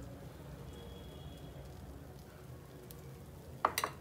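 A faint steady hiss from the lit gas burner under a steel kadhai while melted ghee is poured in. Then, about three and a half seconds in, comes a short metallic clatter of two quick knocks, steel on steel, as the steel cup is put away.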